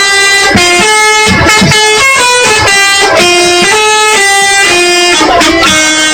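Telolet multi-tone musical bus horn playing a quick melody, stepping from note to note every fraction of a second.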